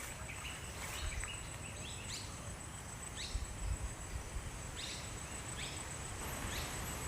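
Outdoor ambience: a bird gives short chirps every second or so, irregularly, over a steady high-pitched insect drone and a low rumble.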